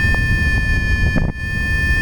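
Wind buffeting the microphone in flight during a paraglider flight, with a steady, high electronic tone held through it.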